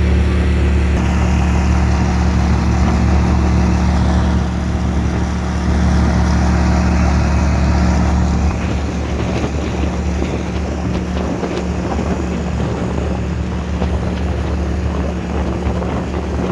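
Motorboat engine running at a steady speed with a deep hum, easing back about four and a half seconds in and again about eight and a half seconds in.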